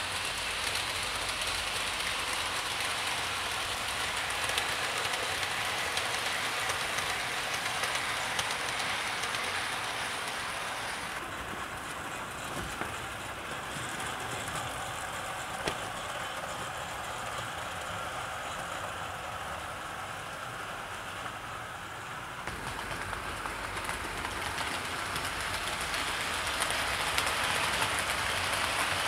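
OO gauge Hornby model trains running on sectional track: a steady hiss and whir of wheels on the rails and the locomotive motors, with a few faint clicks. The sound turns duller and a little quieter about a third of the way in, then brightens again about three quarters of the way through.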